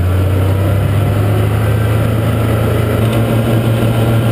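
Snowmobile engine running steadily under way, heard from the rider's seat as a loud, low hum. The engine note steps up slightly about three seconds in.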